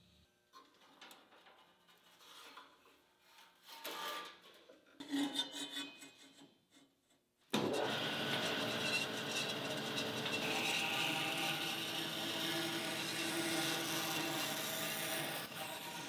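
Vertical metal-cutting bandsaw, driven by a 2-horsepower three-phase motor, cutting a block of wood: a steady rasping hiss of blade and motor that comes in suddenly about halfway in. Before it, only a few faint handling knocks.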